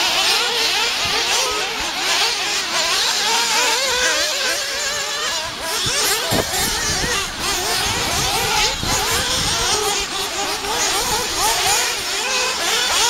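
Engines of several radio-controlled off-road buggies buzzing at high revs, their pitch constantly rising and falling as they throttle up and back off around the dirt track. A few low thumps come in the second half.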